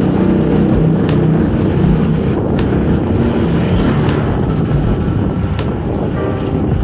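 Steady traffic rumble with wind on the microphone, heard while riding a fixed-gear bicycle; nearby engines run through it, with faint regular ticking over the top.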